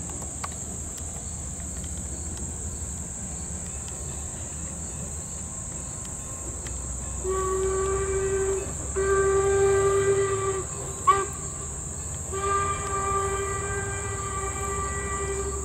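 Steam locomotive whistle blowing the grade-crossing signal: two long blasts, a very short one, then a long one, starting about halfway through. A steady high chorus of insects runs underneath.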